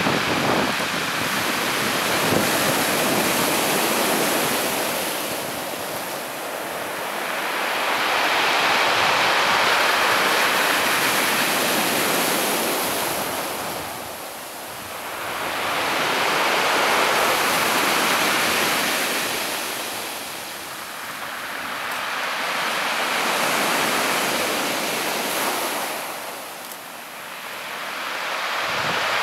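Small waves breaking and washing up over a pebble beach, the surf swelling and fading about every six to seven seconds.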